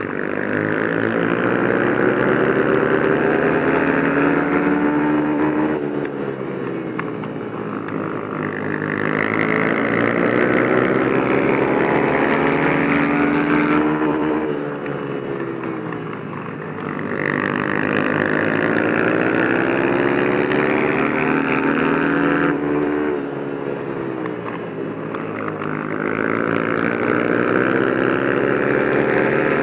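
Flat-track racing motorcycle engine heard close up, winding up in pitch for several seconds on the throttle and then falling back off it, over and over, as the bike laps a dirt oval; the pitch drops three times, about every eight seconds.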